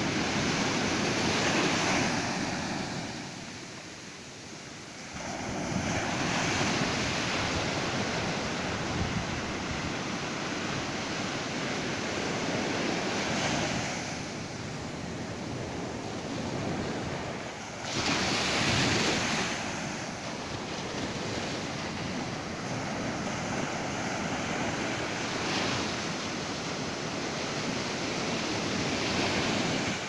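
Ocean surf breaking and washing up a sandy beach in repeated surges. There is a brief quieter lull a few seconds in, and the loudest break comes a little past halfway.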